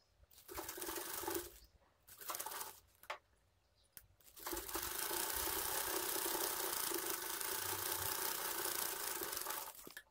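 Domestic sewing machine stitching lace onto a blouse sleeve: two short bursts of stitching, then a steady run of about five seconds.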